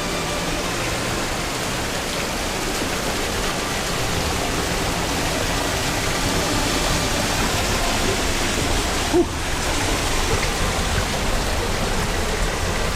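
Waterfall water rushing in a steady, even roar, growing a little louder about four seconds in, with a brief sharper sound about nine seconds in.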